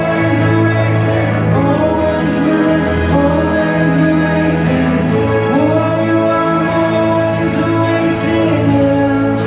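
Live unplugged rock band playing: sung vocals over acoustic instruments, continuous and steady in level.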